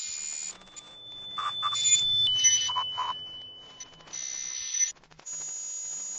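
Electronic outro music and sound effects: hissy swishes that cut in and out, and a held high tone that drops a step in pitch a little after two seconds, over a low hum that swells in the middle.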